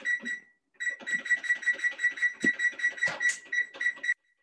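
Digital timer beeping as it is set: one short high beep, then a rapid even run of the same beep, about six a second for some three seconds, which stops abruptly.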